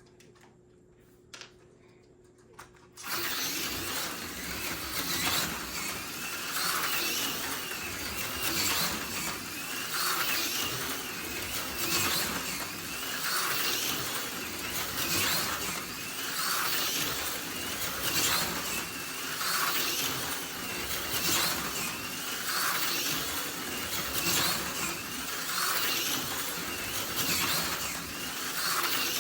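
AFX Super G-Plus HO slot car running laps, its small electric motor and gears whirring with the pickup shoes rasping on the rails, starting suddenly about three seconds in. The whir swells and fades about every two seconds as the car comes around the track.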